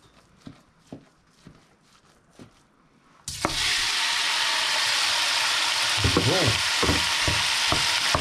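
Raw ground beef dropped into a hot oiled pot, sizzling loudly the instant it lands about three seconds in and then frying steadily. Before that come a few light knocks of a wooden spoon scraping it out of a plastic bowl, and a wooden spoon then pushes and scrapes the meat in the pot.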